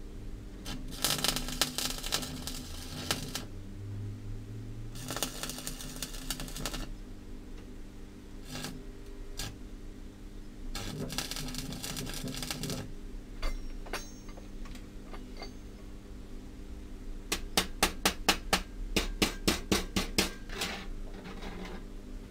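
MIG welder tack-welding iron scrolls together: three crackling bursts of about two seconds each, over the steady hum of the welding machine. Near the end comes a quick run of sharp metallic taps, about four a second.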